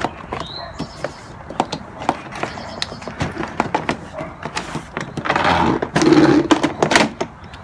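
Plastic door trim panel of a 1997 Toyota Camry being pulled off the door: a string of sharp clicks and snaps, with a louder rustling scrape about five seconds in.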